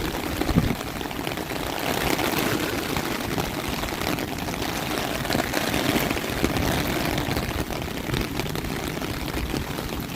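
Storm wind buffeting the phone's microphone in a heavy, uneven rumble, with the hiss of rain, and one louder thump about half a second in.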